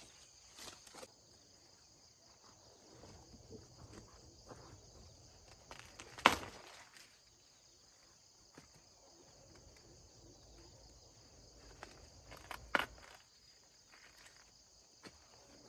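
Steady high-pitched insect chirring, with scattered rustling and a few sudden sharp sounds, the loudest about six seconds in and another near thirteen seconds.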